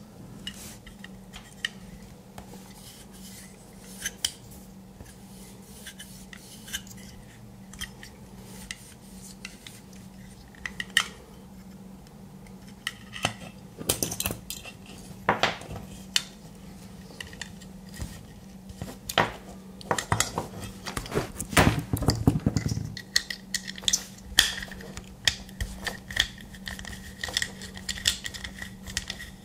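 Light clicks, taps and knocks of a small aluminium enclosure, its circuit board and screws being handled and taken apart, busier around the middle, with a small screwdriver on a screw near the end. A steady low hum runs underneath.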